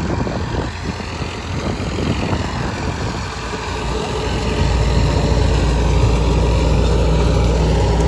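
Tractor-driven wheat thresher running steadily, its tractor engine droning low; the drone grows louder and steadier about halfway through.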